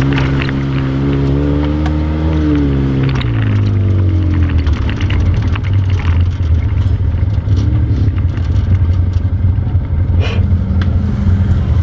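ATV engine running; its pitch climbs a little and then drops about three seconds in, settling into a lower, uneven run. There is a sharp click about ten seconds in.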